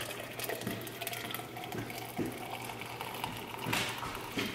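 Coffee poured from a glass carafe into a stainless steel tumbler: liquid splashing as the tumbler fills.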